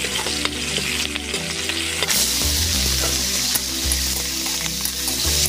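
Sliced onions and chicken pieces sizzling in hot oil in an aluminium kadai. The sizzle gets louder about two seconds in, as the raw chicken goes into the oil.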